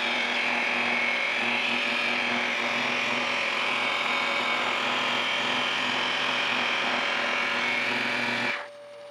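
Handheld electric polisher with a blue foam pad running steadily as it buffs rubbing compound into a lacquered wood vase, then switched off abruptly near the end, leaving a fainter steady hum.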